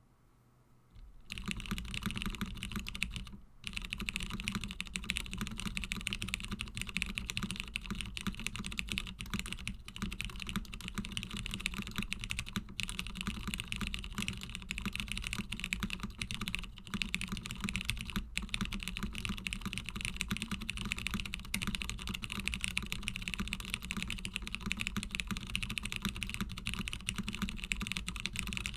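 Rapid, continuous typing on a custom HHKB-layout mechanical keyboard with lubed Cherry MX Brown tactile switches on a top-mounted FR4 half plate, with CRP keycaps. The typing starts about a second in and keeps going, with one brief pause a few seconds in.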